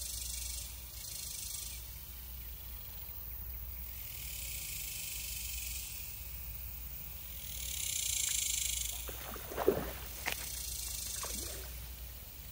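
Two short splashes in shallow pond water, a little before the end, as a bass strikes the worm-baited fishing line at the surface, over a faint high hiss.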